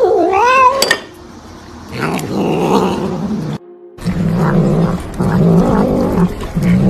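A domestic cat meows once, a long call rising and falling in pitch, in the first second. After a cut, a cat makes low growling sounds in short repeated bursts, about one a second, while eating.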